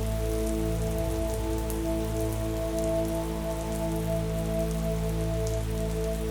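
Steady rain with scattered drop patter, over a soft bed of long held music notes.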